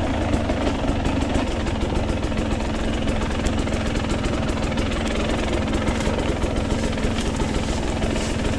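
Off-road motorcycle engine running steadily, its exhaust pulses coming thick and even.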